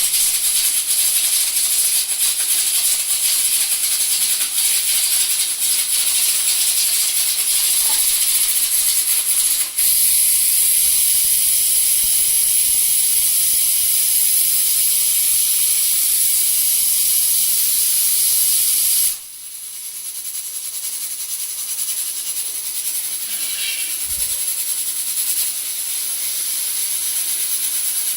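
Prestige pressure cookers venting steam through their whistle weights: a loud, steady high-pitched hiss. It cuts off suddenly about two-thirds through, then builds back up gradually.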